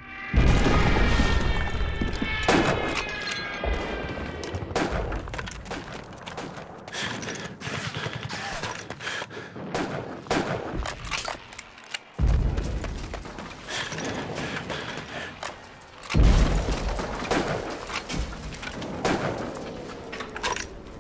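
Battle gunfire: a dense crackle of rifle shots throughout, broken by heavy explosion booms at the start, about twelve seconds in and again about sixteen seconds in. A falling whistle near the end.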